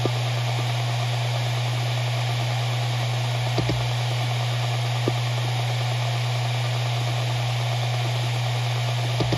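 Maxtor MaXLine Pro 500 7200 RPM hard drive spinning with a steady hum over a hiss. Its heads seek with short clicks: a pair about three and a half seconds in, one at about five seconds, and a quick run near the end.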